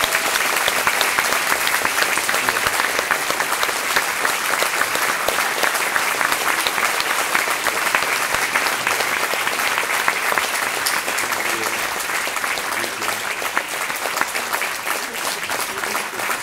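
Audience applauding, many hands clapping in a dense, steady patter that eases off slightly over the last few seconds.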